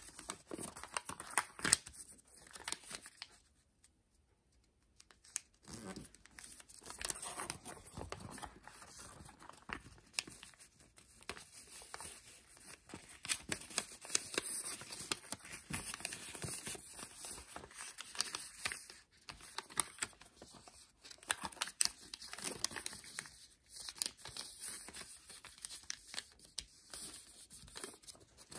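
Thin origami paper rustling and crinkling as it is folded and creased by hand, with sharp little crackles as the folds are pressed. There is a pause of about two seconds a few seconds in.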